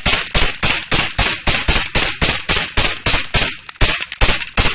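HK USP CO2 air pistol fired in rapid succession, about four sharp cracks a second, as fast as the trigger can be pulled.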